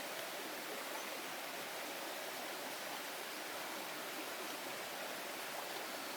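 Heavy rain falling steadily in the forest, an even hiss that doesn't change.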